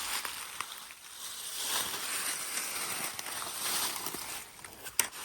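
Rustling in brush and dry leaves, with scattered light clicks and one sharp snap near the end.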